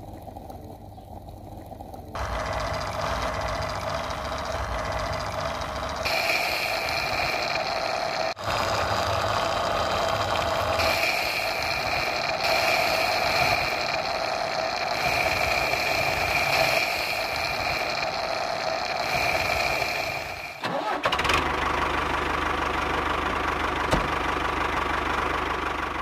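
Small electric motor whirring steadily as it spins the blades of a miniature model chaff cutter chopping green leaves. It starts about two seconds in and cuts out briefly a few seconds before the end, then runs on.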